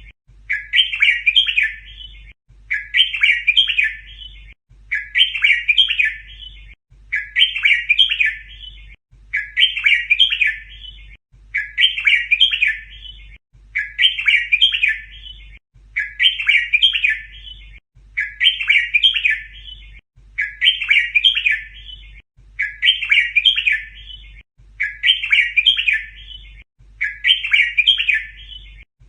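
Red-whiskered bulbul song: the same short, chirpy phrase repeated identically about every two seconds. It is a looped recording for teaching young bulbuls to sing.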